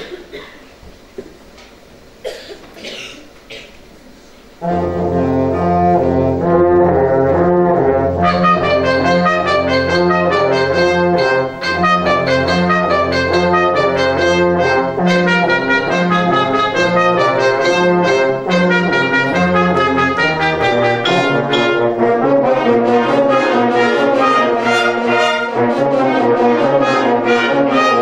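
Youth wind band starting to play about four and a half seconds in, after a few faint clicks. Brass and woodwinds play together over held low notes, and higher parts join a few seconds later.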